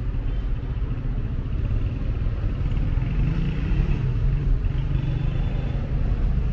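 Steady city road traffic: the low rumble of car and motorbike engines passing along the street, with an engine note that swells a little about halfway through.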